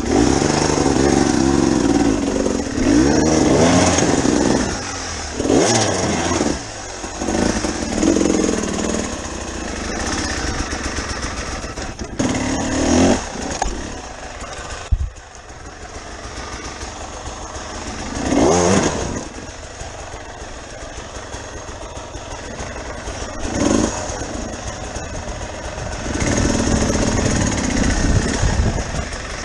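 Dirt bike engine revving hard and easing off again and again, with quieter low running between the bursts of throttle.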